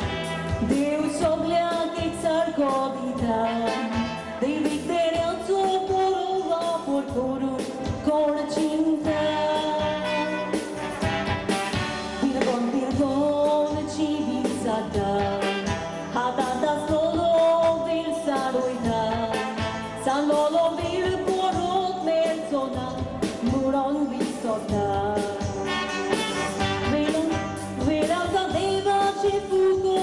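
A woman singing a Konkani song into a microphone over amplified backing music with a steady pop beat.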